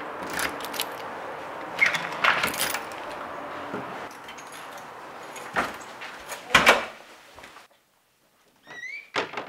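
A ring of keys jangling as a key is worked into a door's deadbolt lock, giving a run of metallic clicks, with two louder clicks a few seconds later. A short rising squeak comes near the end.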